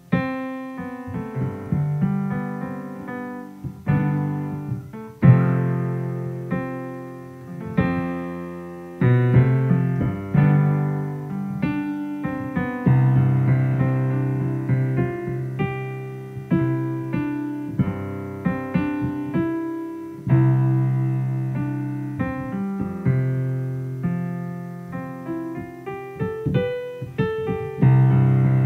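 Background piano music: a run of struck notes, each dying away, over a steady lower part.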